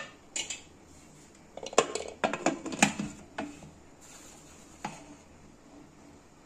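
Metal clinks and knocks of a Prestige Deluxe pressure cooker lid being set on the pot and closed. There is a sharp clink at the start, a quick run of knocks about two to three and a half seconds in, and one more near the end.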